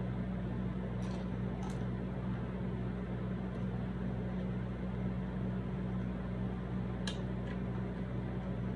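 A steady low mechanical hum, like a fan or appliance running in the room. Over it come a few faint, short crunches as tortilla chips are chewed, about a second in and again near the end.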